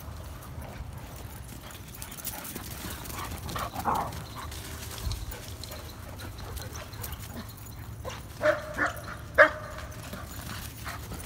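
A dog barking during rough play: one bark about four seconds in, then three loud, short barks in quick succession near the end, over a steady low rumble.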